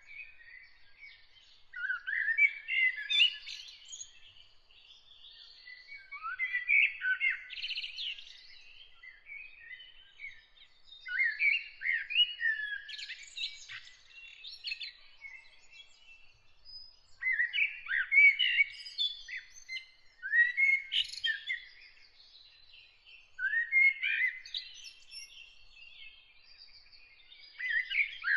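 A songbird singing in short phrases of two to three seconds, with pauses of a few seconds between them, over fainter steady chirping from other birds.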